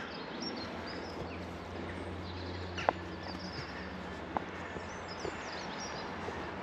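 Outdoor ambience of small birds chirping, with a few scattered footsteps over a steady low background hum.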